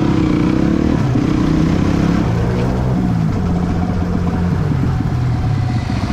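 Trail motorcycle engine running through a new aftermarket full-system exhaust while riding slowly, its note stepping up and down with the throttle in the first half, then settling into a lower, even pulsing at low revs.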